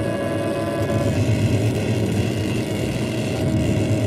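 Cartoon sound effect of a big electrical machine running: a loud, steady hum with a heavy low rumble under it as its glass tubes glow with power. The pitch of the hum shifts slightly about a second in.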